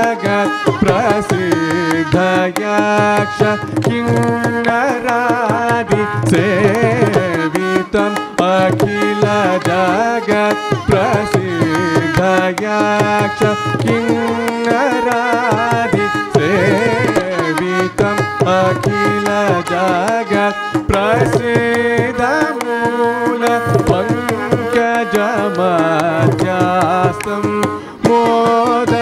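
Carnatic music: a male vocalist singing, closely shadowed by a violin, over a mridangam playing a steady stream of strokes.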